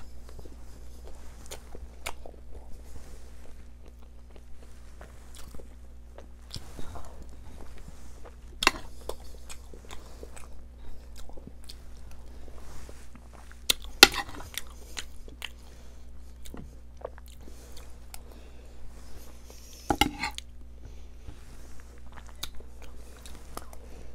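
Close-miked chewing and mouth sounds of someone eating Iraqi pacha (stuffed sheep tripe with chickpeas). A metal spoon and knife clink against the platter, with sharp clicks scattered throughout, the loudest about 9, 14 and 20 seconds in. A low steady hum runs underneath.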